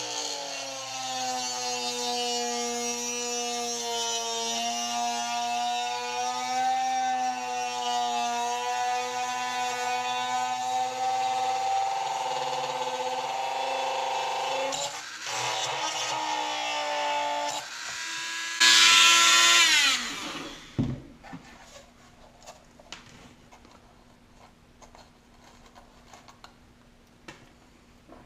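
Dremel rotary tool running as it grinds out the hole in a plastic marker light housing, a steady whine whose pitch wavers slightly with the load. It stops briefly about 15 seconds in, then starts again. Near 19 seconds there is a louder, brighter burst that falls in pitch as the tool winds down, followed by a few faint clicks.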